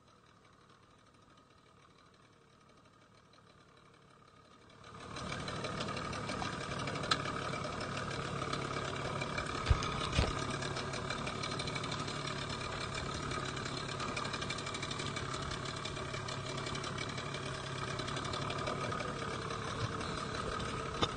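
A small boat's engine running steadily at an even speed, starting about five seconds in after near silence, with a couple of sharp knocks partway through.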